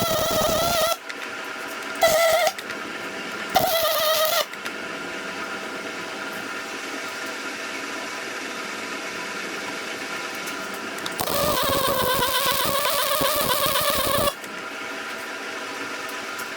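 Wire-feed welder laying short beads: bursts of arc crackle over the steady whine of the wire feed, one of under a second, two brief ones, then a longer run of about three seconds near the end, with a steady low hum in the pauses between.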